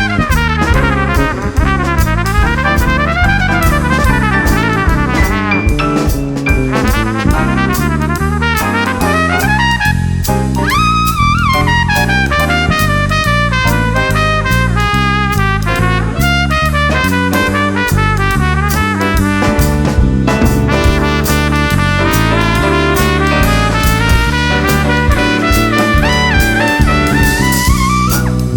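Jazz band playing: a trumpet solos in quick runs over a bass stepping from note to note and a drum kit.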